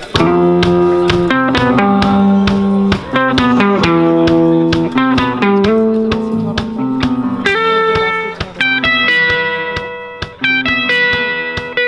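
Live band playing the instrumental intro of a song: guitar chords over a steady beat, with no vocals yet.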